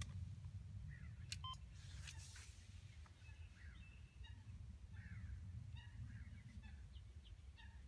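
Faint birdsong: scattered short chirps and quick falling calls from small birds, over a low steady rumble, with a couple of sharp clicks about a second and a half in.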